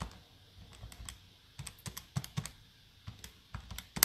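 A run of irregular light clicks and taps, several a second, with a sharper one at the very end.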